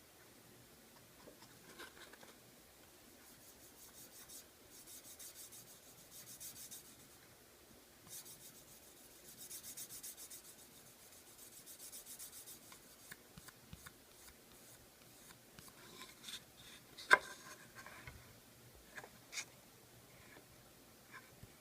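Hand abrasion on wood: two runs of quick back-and-forth rasping strokes, as the wooden case is worked down by hand. Near the end, a few sharp clicks and taps, one much louder than the rest.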